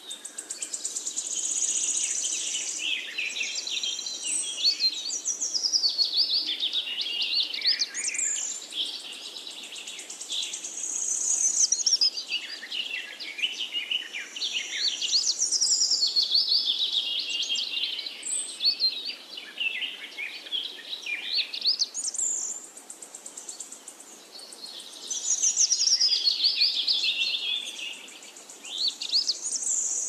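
Songbirds chirping and trilling together, a dense chorus of quick high calls that swells and fades every few seconds.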